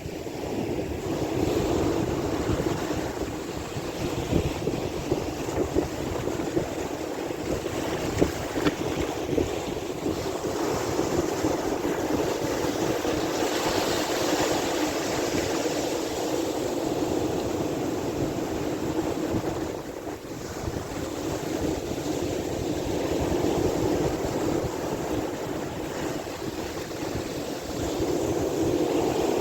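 Sea waves washing continuously, with wind rumbling on the microphone; the rush swells and eases and dips briefly about two-thirds of the way through.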